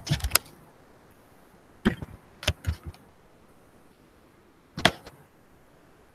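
Handling noise from the recording device being picked up and turned: a few sharp knocks and clicks, a cluster at the start, three more around two to three seconds in, and one near five seconds, with faint room hiss between them.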